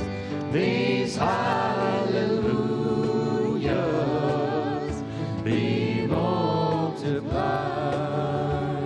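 Contemporary worship band performing: several voices singing long held notes together, with guitars and piano.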